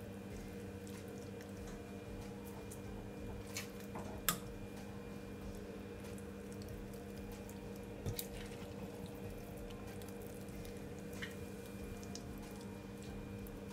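Faint wet handling of whole raw fish stuffed with callaloo and shrimp in a glass baking dish: soft squishes and a few small sharp clicks and taps, the loudest about four and eight seconds in, over a steady low background hum.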